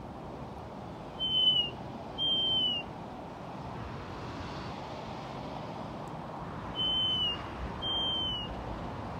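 A hawk calling: four clear, whistled calls in two pairs, each about half a second long and sliding slightly down at the end, over a steady background hiss.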